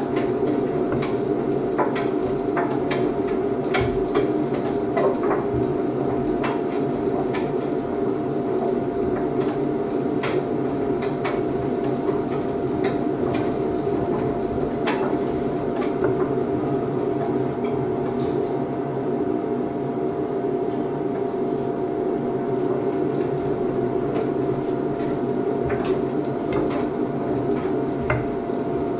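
Beko WDC7523002W washer-dryer in its drying cycle: the drum turning and the drying fan and motor running as a steady hum with a constant thin whine. Irregular light knocks and clicks come from the load tumbling against the drum, more often in the first half.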